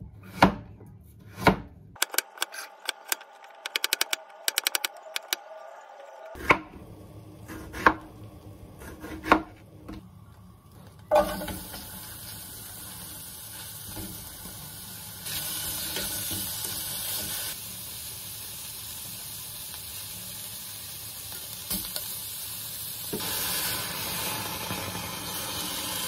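A kitchen knife cutting carrot on a wooden cutting board: a few sharp chops and a quick run of rapid clicks. From about eleven seconds a steady hiss at the gas stove grows louder twice, the second time as liquid is poured into the aluminium pan, and stops suddenly near the end.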